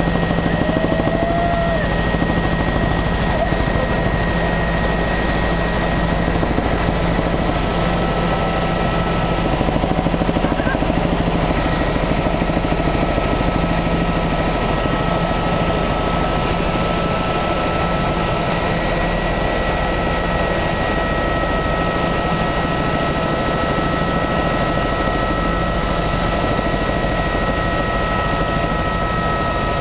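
Steady engine drone heard inside the cabin of a small aircraft in flight, an even roar with a few constant whining tones above it.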